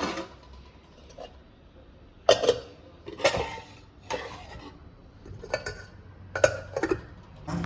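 A series of sharp clinks and knocks of hard objects, about six spread over several seconds at uneven intervals, each with a brief ring after it.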